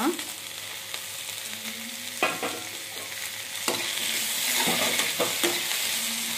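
Onions and freshly added tomato pieces sizzling in butter in a kadai, with a perforated metal ladle scraping and knocking against the pan as they are stirred. The sizzle grows louder a little over halfway through.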